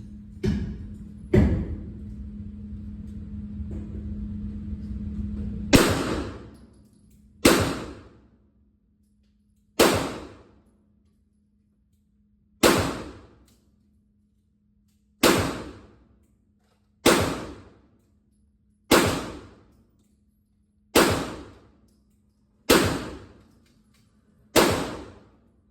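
.22 rifle firing about a dozen single shots at a steady pace, most of them roughly two seconds apart. Each is a sharp crack with a short echoing tail. A rustling noise runs under the first few shots.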